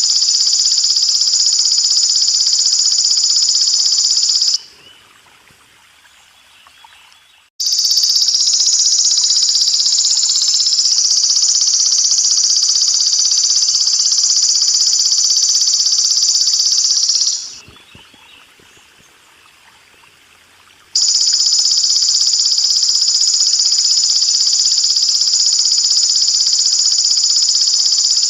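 Golden katydid (belalang emas) stridulating in a dense, high-pitched continuous buzz, in three long bouts broken by pauses of a few seconds. Faint running water lies beneath.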